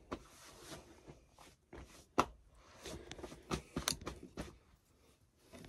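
Irregular squishing and rustling of hands working styling cream through wet curly hair, with a few sharp clicks, the loudest about two seconds in.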